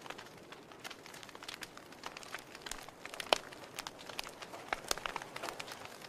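Wood fire in a fireplace crackling: irregular small snaps and pops over a soft hiss, with one sharper pop about halfway through.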